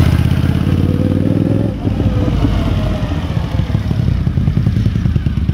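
Suzuki TL1000S V-twin engine, freshly rebuilt, riding past close by at low speed. It is loud and steady at first, drops in level about two seconds in as the bike moves off, then keeps up an uneven pulsing low-speed beat.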